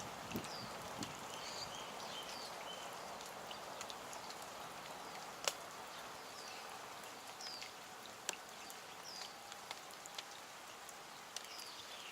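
Faint outdoor background hiss with a small bird chirping now and then in short, high, falling notes, and a few sharp clicks.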